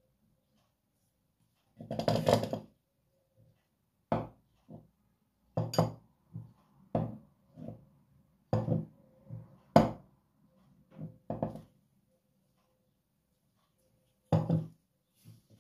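Dishes and kitchen items being handled and set down on a hard tabletop: a series of short knocks and clinks with pauses between them, and a longer rattle about two seconds in.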